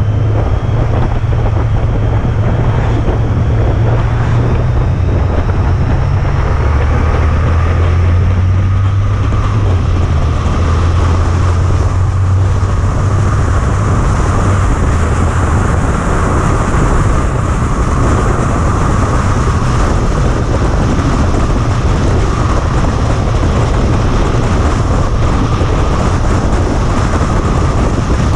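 Honda ST1300 Pan European ridden at road speed: a steady low engine drone with wind rushing over the microphone. The drone shifts slightly in pitch a few times.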